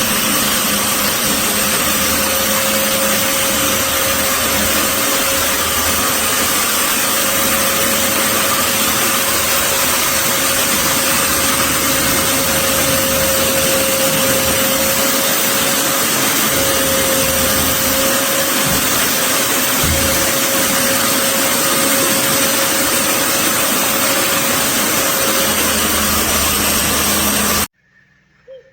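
Electric drywall sander running steadily: an even motor noise with a constant hum that cuts off abruptly near the end.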